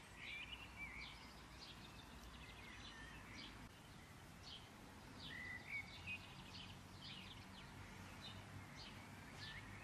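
Faint, scattered bird chirps with short rising and falling notes over quiet room hiss; otherwise near silence.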